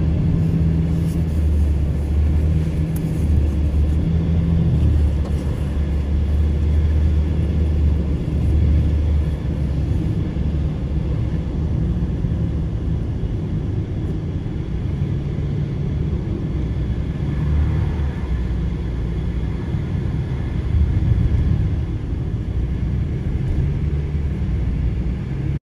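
Steady low road and engine rumble heard from inside a moving vehicle's cabin. It cuts off suddenly at the very end.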